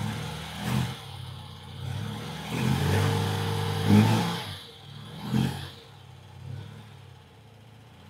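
1974 BMW R90/6's air-cooled flat-twin engine running, revved with the throttle: a short blip about a second in, a longer rev from two and a half to four seconds, another short blip after five seconds, then it settles back to a lower, steady run.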